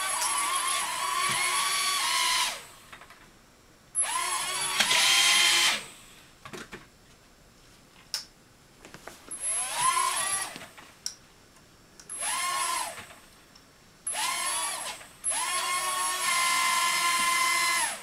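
Small toy quadcopter drone's electric motors whining in about six bursts of one to three seconds, spinning up and cutting off, the pitch rising and dipping with the throttle.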